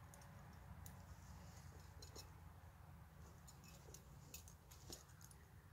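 Near silence: faint background with a few soft, scattered ticks.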